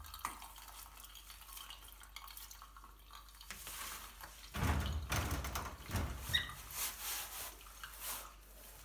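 Water dripping and wet fabric being handled as a soaked Sealskinz waterproof sock is peeled off a foot in a shower tray. There are scattered small clicks at first, then louder rustling and rubbing from about halfway through.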